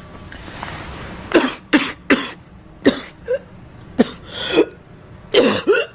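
A girl coughing in a fit of about nine short, sharp coughs, several coming in quick pairs, starting about a second and a half in.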